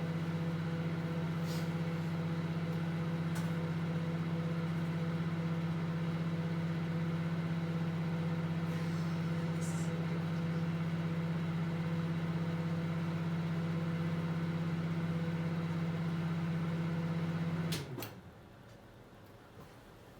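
Microwave oven running with a steady low hum and a few faint, brief crackles over it, then cutting off with a couple of sharp clicks near the end.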